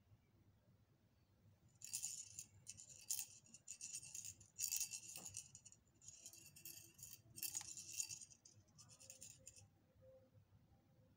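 Plastic bunny-topped bubble wand tube being shaken in uneven bursts, rattling, starting about two seconds in and stopping a couple of seconds before the end.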